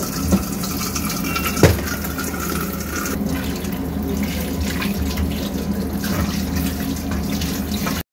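Kitchen tap water running into a steel colander in a stainless steel sink while raw fish pieces are rinsed by hand under the stream. There is one sharp knock about a second and a half in, and the sound cuts off suddenly at the very end.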